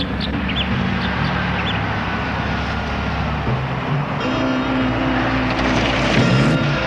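A motor vehicle running, with steady engine noise that changes about four seconds in.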